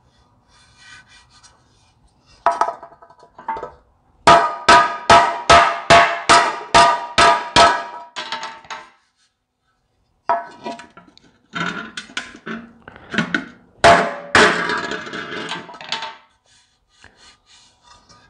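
Hammer blows on a Ford tractor's steel air cleaner cap laid against a cast-iron differential housing, straightening out dents. Each blow rings. There is a run of about ten evenly spaced strikes, a little over two a second, then after a pause a second, more irregular flurry of strikes.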